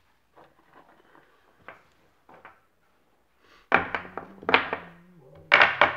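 Knocks and thuds in two loud clusters, one about two-thirds of the way in and another near the end, with fainter taps before them and a low steady hum under the later part.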